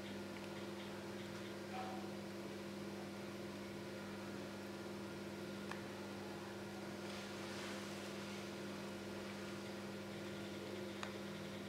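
Steady low electrical hum with a faint hiss, broken by a few faint short clicks.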